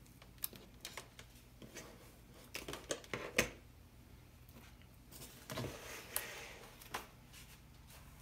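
Handling noise from servo leads and a plastic-bottle airframe being worked by hand: scattered small clicks and rustles, with one sharper click about three and a half seconds in, over a faint low hum.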